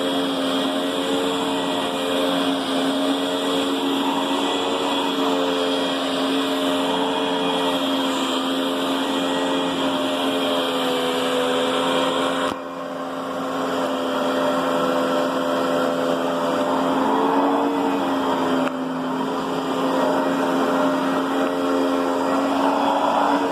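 Riccar Brilliance upright vacuum cleaner running steadily with its motor hum and a few slightly wavering tones above it. The sound drops suddenly twice, about twelve and nineteen seconds in, and then picks back up.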